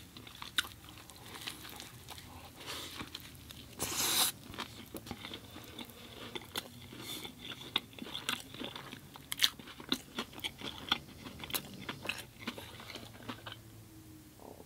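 A person chewing and crunching food close to the microphone, with many short wet clicks and a louder bite about four seconds in. The chewing stops shortly before the end.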